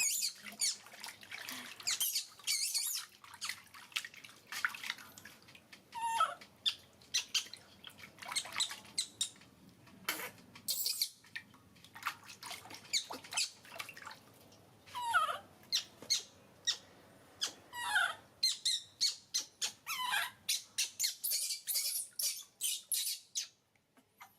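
Baby monkey giving short high squeaks, several of them falling in pitch, among many quick sharp clicks and smacking noises, which come thick and fast near the end.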